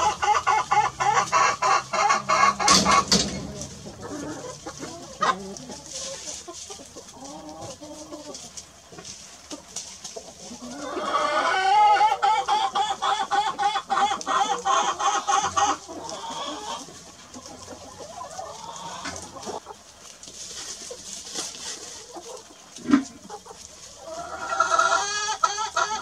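Domestic chickens clucking, in loud runs of rapid cackling at the start, for several seconds from about eleven seconds in, and again near the end, with softer scattered clucks in between.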